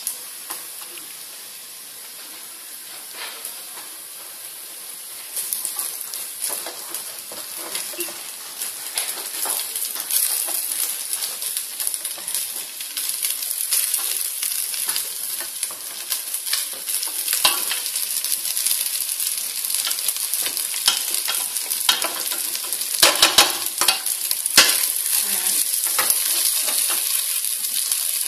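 Cooked rice frying in oil in a metal pot: a steady sizzle that grows louder about five seconds in, with the scraping and knocking of a wooden spoon stirring it, and a few louder knocks late on.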